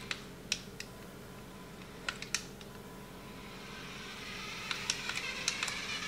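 Sharp plastic clicks from the RC car's hand-held remote-control transmitter being handled: three near the start and a quick cluster about two seconds in. From about four seconds in, a faint high electric whine grows steadily louder.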